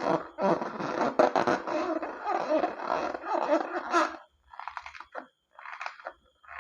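Slime being squished and mixed, giving wet squelching sounds. They run together for about four seconds, then come as shorter separate squishes.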